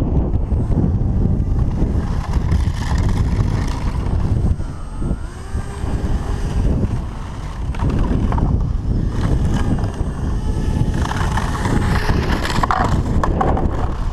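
RC airboat's brushless motor and propeller running, its whine gliding up and down in pitch with the throttle, most clearly about five seconds in and again near the end. Heavy wind noise on the microphone runs under it throughout.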